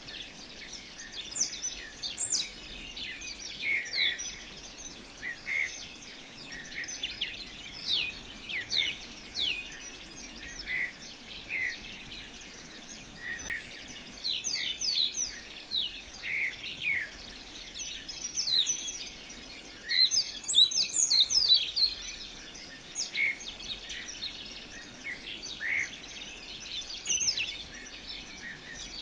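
Birds chirping: many short, quick high calls, most sliding downward, over a steady background hiss, with a busier, louder burst of calls about two-thirds of the way through.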